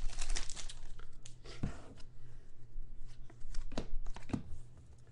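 Foil trading-card pack wrappers crinkling and tearing as packs are opened and the cards handled, with a few sharper snaps among the rustling. It dies down near the end.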